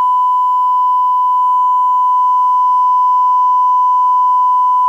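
Mak Pro MK-1801SWA loudspeaker system playing a steady 1 kHz sine-wave test tone for an SPL measurement, reading about 111 dB SPL at one metre.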